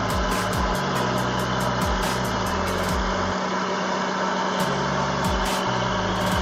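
A vehicle engine running steadily, with frequent short clicks over it.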